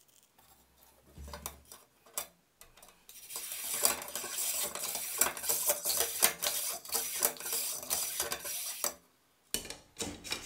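Bronze bore brush on a cleaning rod scrubbed rapidly back and forth through the rifle bore of a Kar98k barrel, a dense metallic scraping that clears corrosion roughness from the bore. A few light clicks come first, and the scrubbing pauses briefly near the end before starting again.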